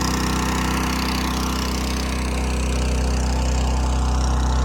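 A large diesel engine running steadily at an even, unchanging speed.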